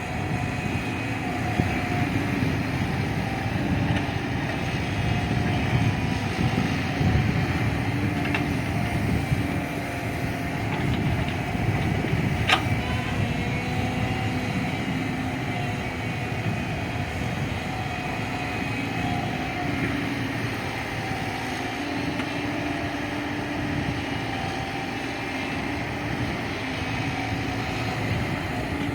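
JCB 3DX backhoe loader's diesel engine running while working, its note swelling and easing, with a single sharp clank about twelve seconds in.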